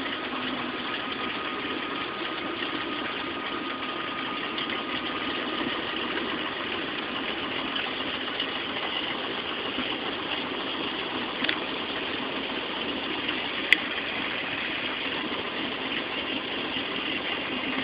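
Small airplane's engine running steadily, heard inside the cabin as an even drone, with one sharp click near the end.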